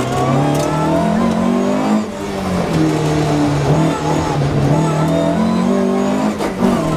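Rally car's engine at full effort, heard from inside the cabin. The engine note climbs, drops back about two seconds in, climbs again and drops back once more near the end.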